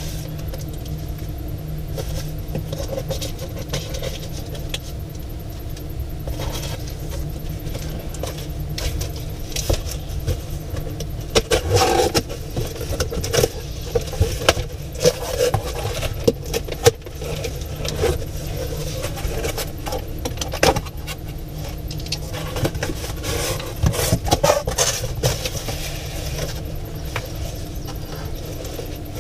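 Paper being shredded by hand: irregular crinkling and clicking, busiest in the middle and again near the end, over a steady low motor hum.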